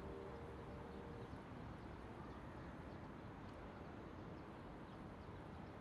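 Faint outdoor city ambience: a low, steady rumble with a few light scattered ticks, as the last held notes of music die away in the first second.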